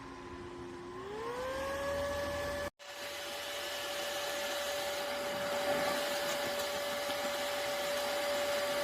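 Electric fan, used with a Xiaomi air filter as a DIY air purifier, running with a motor whine over rushing air; about a second in the whine glides up as the fan speeds up. After a short break it runs steadily at the higher speed.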